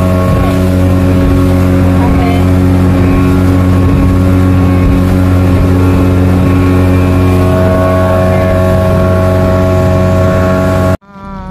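Engine of a river passenger speedboat running steadily at cruising speed, heard loud from inside the covered passenger cabin. The sound cuts off suddenly near the end.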